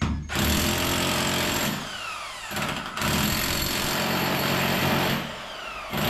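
Electric demolition hammer with a chisel bit chipping into the concrete wall behind stripped tiles, run in three bursts, its motor whining down between them. This is chipping out the wall to find a buried water pipe.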